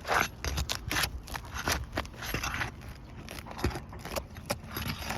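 A flat bar prying under asphalt 3-tab shingles, breaking their adhesive seal strips loose: an irregular run of scraping and crackling clicks.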